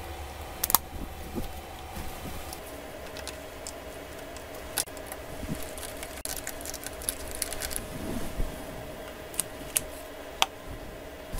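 Scattered small clicks and taps of hand tools and small parts being handled inside an opened Samsung Galaxy S22 Ultra, the sharpest about a second in and a few near the end, over a steady faint hum.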